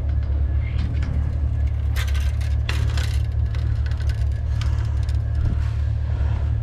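A vehicle engine running with a steady low rumble, with a few scraping clatters about two and three seconds in as junk in the dumpster is pushed around.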